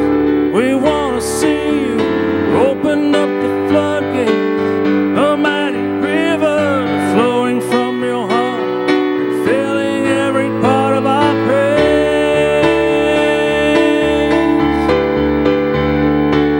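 Electronic keyboard playing held worship-song chords under a man's wordless, wavering vocal runs. The vocal line drops out about twelve seconds in, leaving the sustained keyboard chords.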